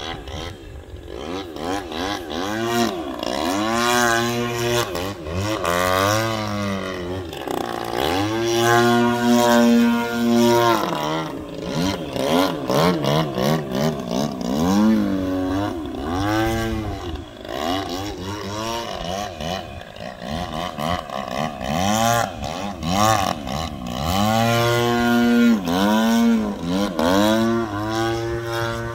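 The GP76 engine and 24x9 Falcon propeller of a 92-inch AJ Aircraft Laser Z200 radio-control aerobatic plane in flight. The drone rises and falls in pitch over and over, swelling louder on several passes as the plane throttles through its manoeuvres.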